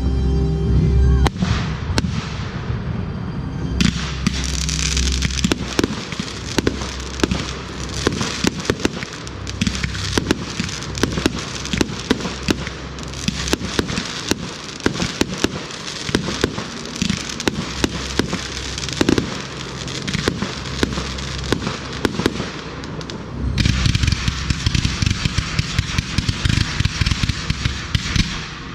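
Fireworks display: many sharp bangs and crackles from aerial shells going off in quick succession, over music. The noise thickens into a dense crackling rush for the last few seconds.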